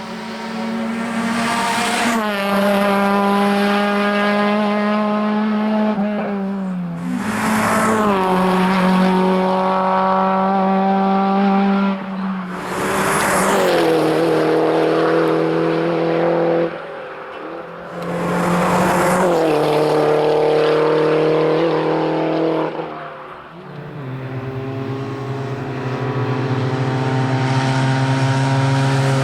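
Racing car engine running hard at high revs, its note holding fairly steady and then dropping sharply several times, about every five seconds.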